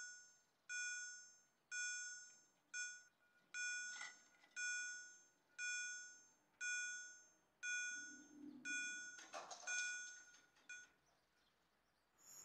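Level-crossing warning bell ringing about once a second, each ding dying away, as the barrier arms come down: the signal that a train is approaching. The ringing stops about eleven seconds in.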